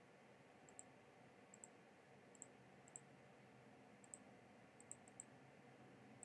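Faint computer mouse button clicks, about seven short presses spread over near-silent room tone, several heard as quick double clicks.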